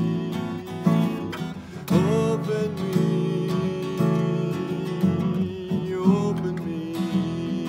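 Acoustic guitar strummed steadily while a man sings long held notes, one note gliding up about two seconds in and settling to a lower held note near the end.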